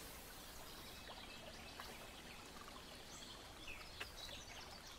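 Near silence: faint background hiss with a few soft taps of laser-cut MDF pieces being handled.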